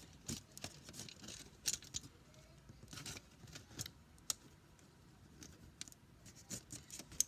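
Faint, scattered light taps and rustles of a homemade paper craft being handled, with a few sharper clicks.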